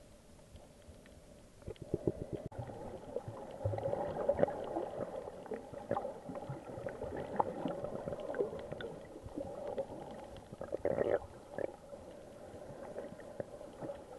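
Muffled underwater water noise: irregular gurgling and bubbling with many scattered clicks and crackles, louder from about two seconds in.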